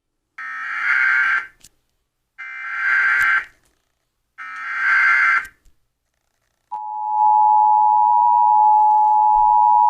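Emergency Alert System severe thunderstorm warning coming through: three raspy data bursts of the SAME header, each about a second long and a second apart, then a steady attention-signal tone that begins about seven seconds in and holds.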